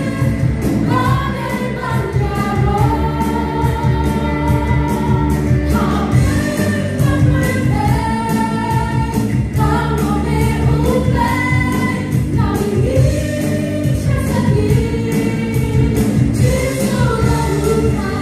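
Live gospel praise-and-worship song: a group of women singing together over a band of drum kit and electric, bass and acoustic guitars, with a steady drum beat.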